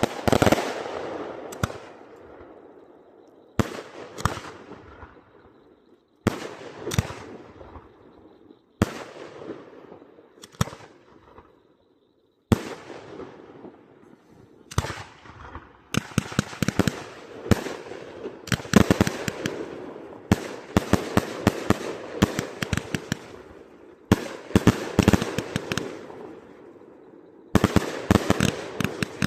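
Firework cakes going off: volleys of rapid, sharp cracks and bangs, one burst after another, several of them starting suddenly and dying away between.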